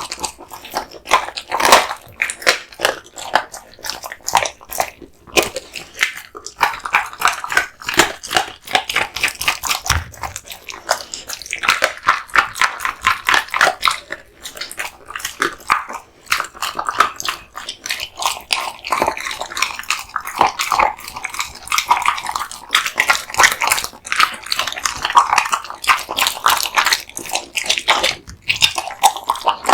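An American Bully dog biting and chewing raw meat and bones: wet, crunching bites that come quickly and irregularly throughout.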